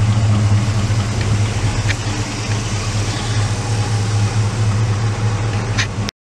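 Squarebody Chevrolet pickup's engine idling steadily and loudly, a deep even hum, cutting off abruptly just before the end.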